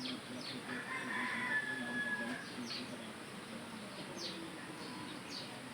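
Birds calling: a string of short, falling chirps, with a longer call from about one to two and a half seconds in.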